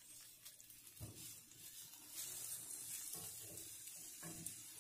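Faint sizzle of sliced onions frying in a cast-iron skillet, with a wooden spatula stirring and scraping in the pan a few times.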